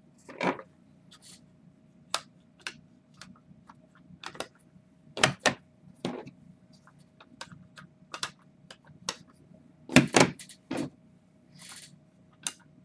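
Hard plastic PSA graded-card cases (slabs) clicking and clacking against each other and the table as they are picked up and flipped through in stacks. The clicks are irregular, with a louder cluster about ten seconds in, over a faint steady hum.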